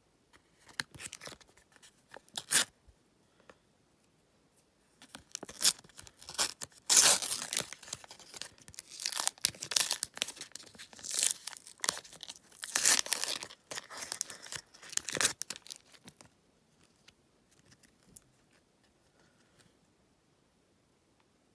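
A Panini sticker packet being torn open by hand. The wrapper gives a few short crackles at first, then a long stretch of loud tearing and crinkling through the middle, and only faint rustles near the end as the stickers are handled.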